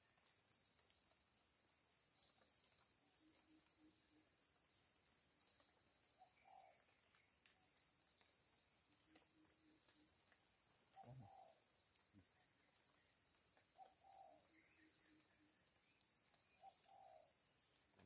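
Faint, steady high-pitched drone of insects, with a few faint short calls every few seconds.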